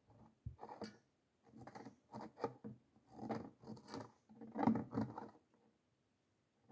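A donkey eating from a plastic bucket: irregular bouts of crunching and scraping as its muzzle works in the bucket, going quiet about five and a half seconds in.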